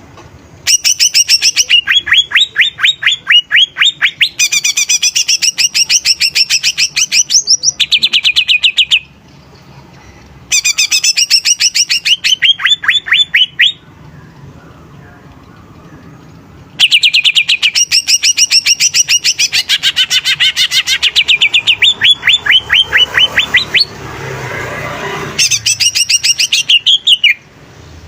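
Green leafbird (cucak ijo) singing in full, loud voice: long runs of quick, rapidly repeated whistled notes, several a second, broken by short pauses.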